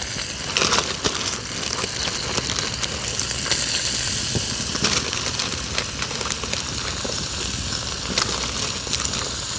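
Hamburger patties and onion sizzling in a skillet over a campfire: a steady hiss with scattered pops.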